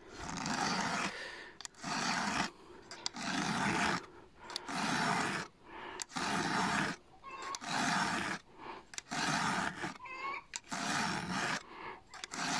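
Round chainsaw file rasping across a saw chain's cutter tooth in regular hand strokes, about nine of them, one roughly every second and a half, as the tooth is sharpened.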